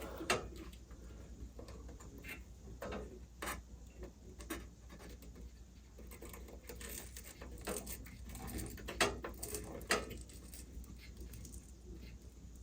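Faint, scattered clicks and rattles of small parts and wiring being handled while a furnace igniter is being wired in, over a steady low hum.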